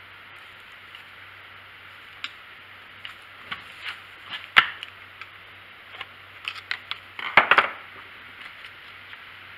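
Scattered clicks and knocks of a screwdriver and hands working against the plastic housing and fuel tank of a Stihl 290 chainsaw, as the rubber fuel-line grommet is pressed into the tank. The sharpest knock comes about halfway through, with a quick cluster of clicks near the end.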